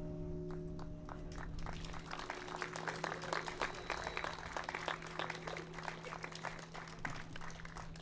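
The ringing of a large church bell dies away, its low hum lingering, while a small crowd breaks into applause about a second in and claps for several seconds.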